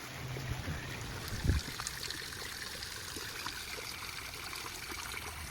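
Water trickling steadily over the stones of a small backyard rock waterfall fountain. A single low thump comes about a second and a half in.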